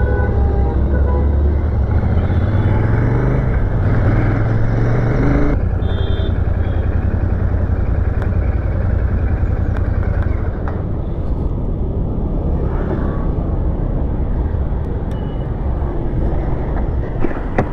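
Royal Enfield Shotgun 650's 648 cc parallel-twin engine and exhaust running as the bike rides and then slows to a stop. There is heavy wind and road rumble until about five seconds in, after which a steady low exhaust beat is heard at low speed.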